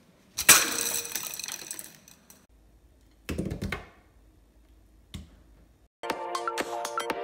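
Short, sudden kitchen-counter impact sounds: a sharp hit with a hissing rattle about half a second in, a shorter clatter a little after three seconds as food lands on the countertop, and a single click past five seconds. Electronic music with a beat starts about six seconds in.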